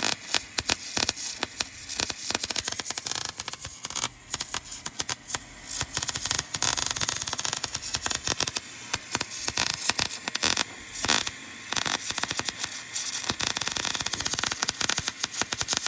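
Electric welding arc crackling steadily on the vehicle's steel frame, with a few short breaks between welds.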